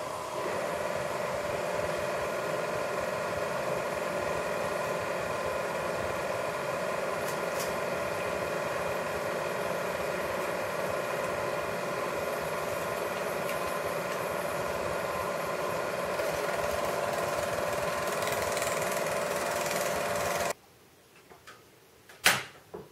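Eumig-built Porst Sound BSP 10 Super 8 projector running: a steady mechanical hum with several steady tones, which cuts off suddenly about twenty seconds in. A sharp click follows near the end as a control button is pressed.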